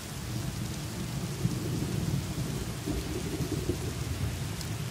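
Rain-and-thunder ambience: a steady hiss of rain with a low rumble of thunder underneath.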